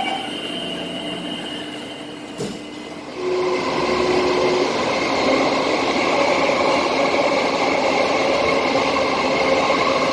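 Singapore MRT train heard from inside the carriage: a short knock about two and a half seconds in as the doors shut, then the train pulls away and its running noise jumps up and stays loud and steady in the tunnel, with a steady motor hum.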